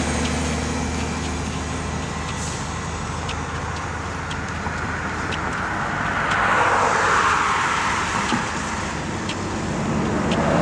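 Road traffic: a steady hum of vehicles, with a car passing and swelling loudest about six to eight seconds in and another approaching near the end. Faint sharp clicks about once a second, from walking footsteps.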